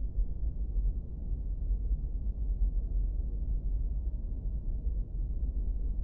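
Steady low rumble of a car driving along a rough road, engine and tyre noise, muffled and with no high sounds.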